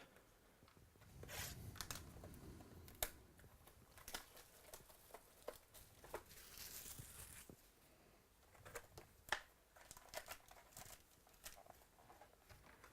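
Faint crinkling and tearing of packaging with scattered light clicks and taps, as a box of trading-card packs is opened and handled.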